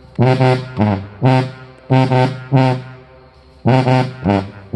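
Sousaphone playing a phrase of about ten short, low, accented notes, each fading quickly, with a pause about three seconds in. The bell is turned different ways relative to the microphone, which changes how the horn is picked up.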